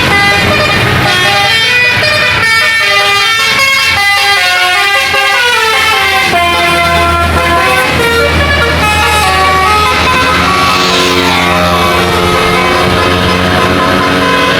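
Bus 'telolet' musical air horns playing a quick tune of short stepped notes over the steady hum of a bus engine. In the last few seconds the notes turn lower and longer.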